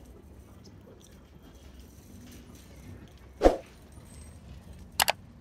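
A single short, loud bark about halfway through, then two quick clicks close together near the end, over a faint low background hum.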